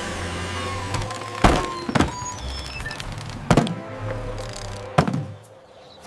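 Cartoon background music with four sharp wooden thunks, the sound effect of wooden chocks knocking loose from under a stack of pipes. After the last thunk the music drops away.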